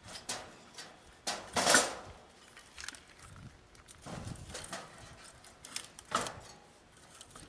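Split firewood clattering against a steel fire pit as pieces are set in: a handful of separate knocks and clunks, the loudest about two seconds in.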